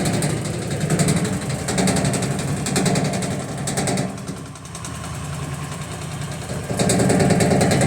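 Electrolux LTC10 washing machine running with a loud, fast, rhythmic rattling and knocking. It eases off about four seconds in and comes back loud near the end. The noise is traced to a broken clamp.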